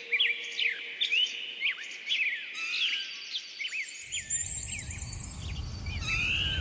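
Small birds chirping, many short quick calls that sweep up and down, several a second. About four seconds in, a low rumble of outdoor ambience comes in under them.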